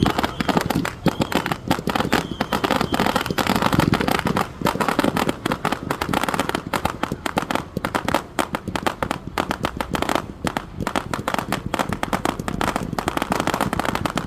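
A mass barrage of Saturn Missile fireworks going off together. It makes a dense, unbroken rattle of very many small pops and crackles every second.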